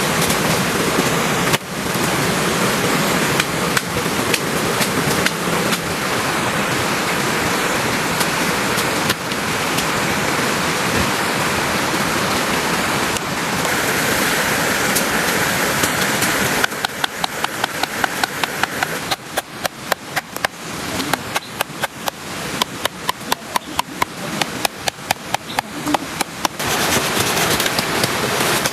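Heavy rain falling steadily. A little past halfway a long run of rapid, evenly spaced sharp taps starts over the rain and stops near the end.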